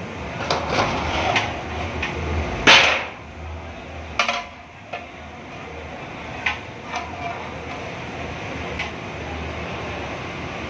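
A metal ladle knocking and scraping against large aluminium cooking pots as biryani rice is stirred and scooped: scattered sharp clanks, the loudest about three seconds in, over steady background noise.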